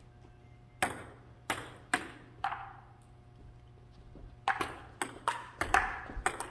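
Table tennis ball clicking off paddles and table: four separate knocks about half a second apart, then a quicker run of hits in a rally from about four and a half seconds in.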